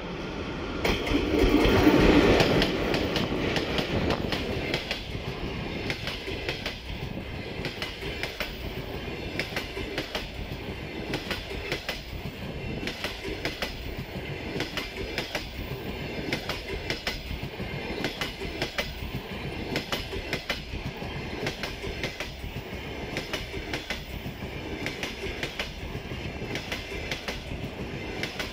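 ChS7 electric locomotive passing close by, loudest about two seconds in, followed by a long train of passenger coaches rolling past with a steady, regular clickety-clack of wheels over the rail joints.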